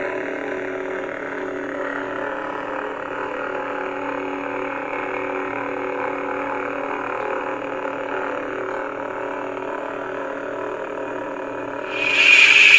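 Lit lightsaber's NBv3 sound board playing a Qui-Gon Jinn sound font's idle blade hum through the hilt speaker: a steady, wavering hum made of several tones. Near the end the sound swells into a louder, brighter surge.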